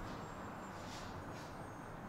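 Steady low outdoor rumble and wind noise, with a faint, thin, high whine from a distant RC plane's motor drifting slightly in pitch as it flies overhead.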